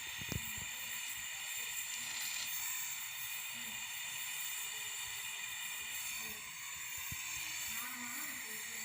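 Steady hiss of a gas brazing torch flame during refrigerator pipe welding, with a sharp click just after the start.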